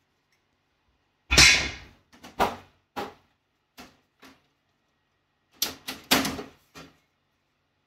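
Sheet-metal damper box of a QuietCool whole house fan knocking and clicking as it is handled and turned over: a series of short sharp metal clacks, the loudest about a second and a half in with a brief ring, then smaller clicks in two clusters.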